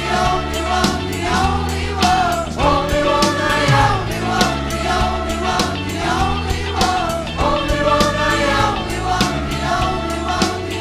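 Large mixed choir singing in full harmony with a live band: drum kit keeping a steady beat, with bass and keyboards underneath.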